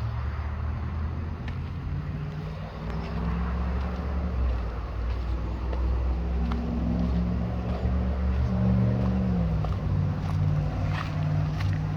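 An engine running steadily, its pitch and loudness shifting: it rises about four seconds in and drops back shortly before the end, with a few faint clicks over it.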